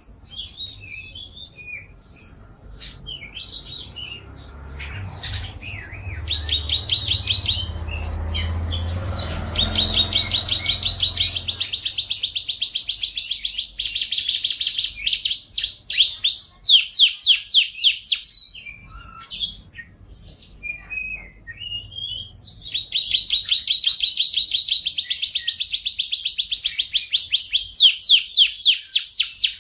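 Domestic canary singing energetically: long, fast trills and rolls of rapidly repeated high notes, broken by a patchier stretch of scattered chirps about two-thirds of the way through. A low rumble sits under the song during the first third.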